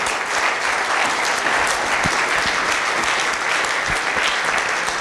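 Audience in a lecture hall applauding, a steady dense clapping that holds without a break.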